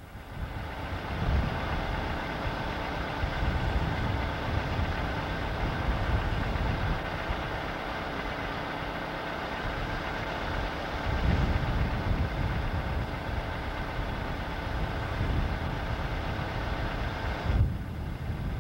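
Norfolk & Western Class A No. 1218, a 2-6-6-4 articulated steam locomotive, standing with a steady hiss of steam over an uneven low rumble. The hiss drops away near the end.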